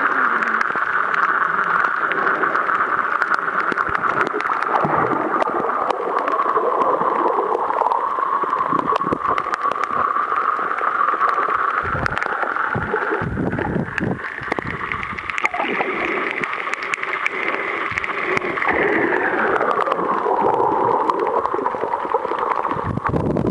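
Underwater sound picked up by a camera in its waterproof housing while snorkeling: a steady gurgling, rushing wash of water. Its pitch rises in the middle and falls near the end, with many scattered clicks and knocks.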